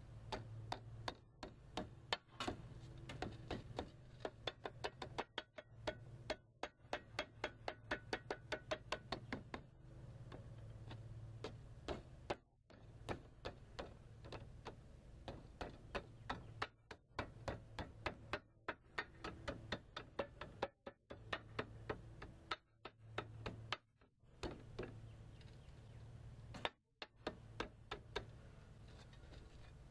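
Rapid light taps of a hand tool on soft lead flashing, dressing a lead skirt down around the base of a roof vent. The taps come in runs of several a second with short pauses between.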